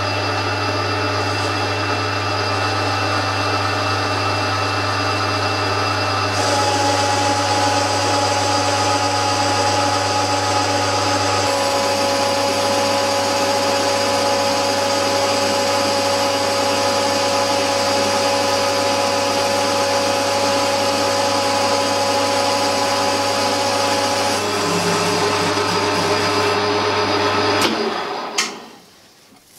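Warco GH-1330 gear-head lathe running at 460 RPM while taking a turning cut on a 4-inch metal bar: a steady motor hum under several steady whining tones. The tone shifts about six and eleven seconds in, and the machine is switched off near the end, its sound dying away.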